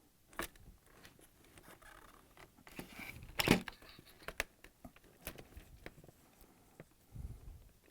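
Wire-harness plug connectors being unplugged from a refrigerator dispenser assembly: scattered plastic clicks and handling rustle, the loudest click about three and a half seconds in, with a low thump near the end.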